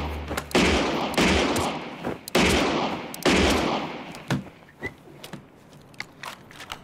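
A rapid string of gunshots from a film soundtrack, each with a ringing tail: four loud shots roughly a second apart, then a fainter fifth about four seconds in. A few light clicks and ticks follow.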